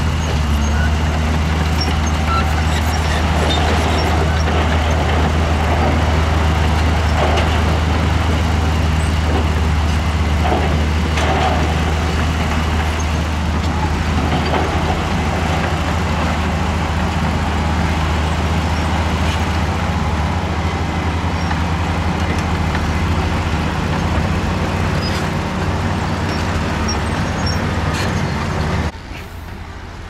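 Diesel dump truck engine running steadily while the hydraulic hoist tips the loaded bed and the dirt slides out, with a few scattered knocks midway. Near the end the sound drops suddenly to a quieter engine hum.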